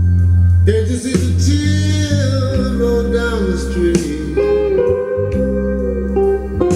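Music: a song with a steady bass line, drum hits and guitar, a gliding melody line carried over it.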